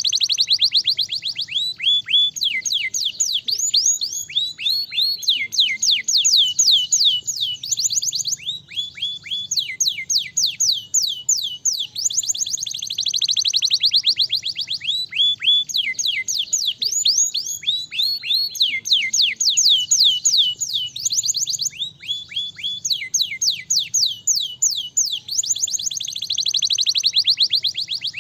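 Domestic canary singing continuously: phrase after phrase of rapid trills, each made of quick, high notes falling in pitch, some runs fast enough to blur into a rolling buzz.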